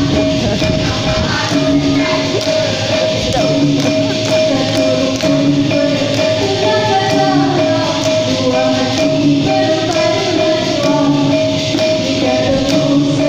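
Dikir barat song heard through a PA: a solo voice sings through a microphone over a steady percussion beat with light jingling strokes, and a held tone runs underneath.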